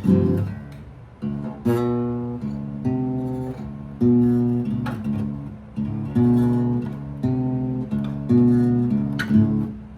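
Guitar music: chords struck sharply about once a second, each ringing out and fading before the next.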